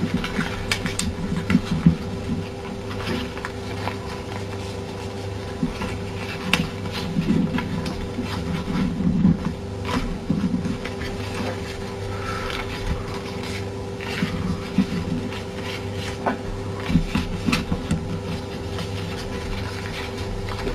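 Paper rustling and crinkling in irregular small clicks as hands fold and press creases into a paper airplane, over a steady low hum.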